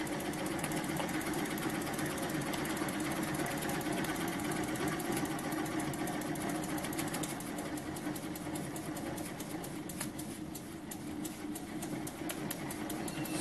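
Small homemade oscillating (wobbler) steam engine running steadily under steam from its burner-fired boiler, a fast, even mechanical ticking rhythm. It is running smoothly now that it has been de-bugged.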